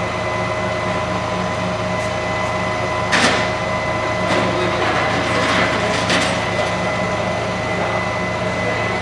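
A truck engine idling steadily, with a sharp clank about three seconds in and a few lighter knocks after it.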